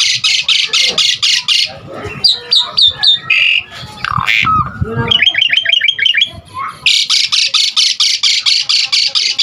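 Pied myna (jalak suren) singing: a fast harsh rattling chatter, about seven notes a second, breaks into a varied run of short whistles and squeaks, then the rattling chatter starts again about two-thirds of the way through.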